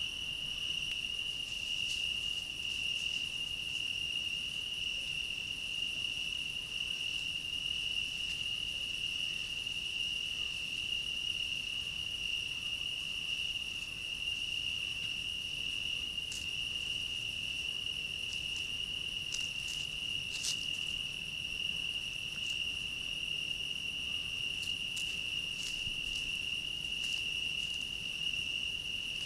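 Crickets singing in a steady, unbroken high trill, with a few faint ticks in the second half.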